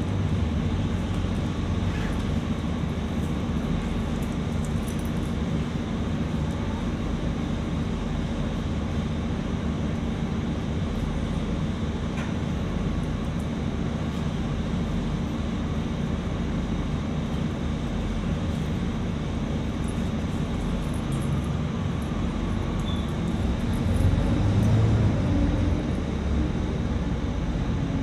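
City bus in service: steady low engine and road rumble, swelling louder for a second or two near the end.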